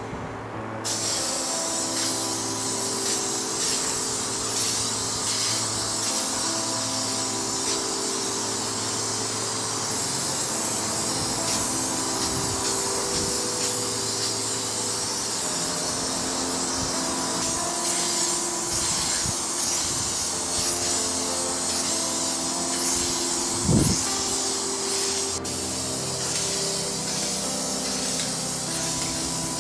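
Aerosol spray paint can spraying in a steady hiss, starting about a second in. A single short low thump comes about three-quarters of the way through.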